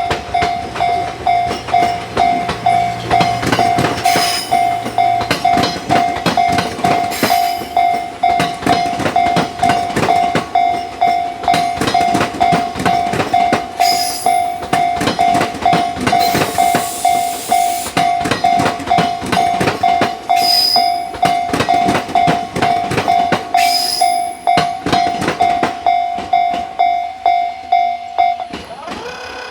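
Tobu Railway level-crossing warning bell ringing steadily at about two strikes a second while a train passes, its wheels clattering over the rail joints, with a few brief high-pitched squeals. The bell stops shortly before the end.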